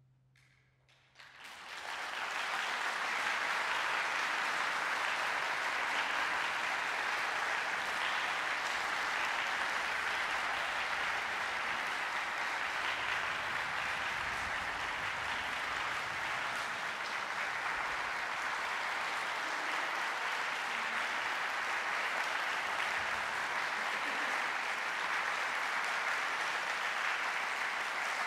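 After about a second of near silence, a concert-hall audience starts applauding and keeps clapping steadily, greeting the end of an orchestral performance.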